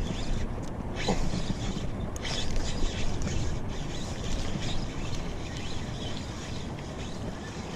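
Fishing reel being wound as a small largemouth bass is fought in to a kayak, with a few short splashes and knocks.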